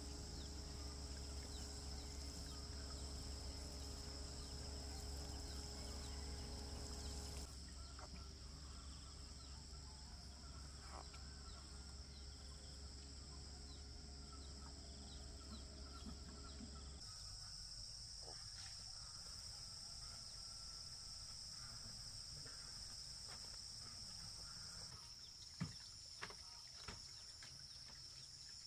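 Steady high-pitched insect chorus, like crickets or cicadas, with a low rumble under it that stops about halfway through. A few sharp knocks come near the end.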